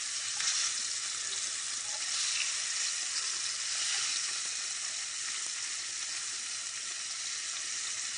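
Fish fillets frying in a really hot pan, a steady sizzle with no break; the fish is browning fast.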